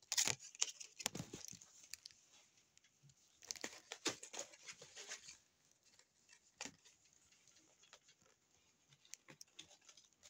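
Paper bookmarks and card packaging being handled: rustling, sliding and light taps of paper and cardboard in irregular scattered bursts, busiest in the middle, with a few light taps near the end.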